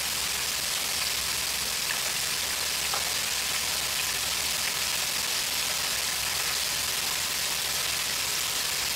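French fries deep-frying in the oil of an electric deep fryer: a steady sizzling hiss with faint crackles.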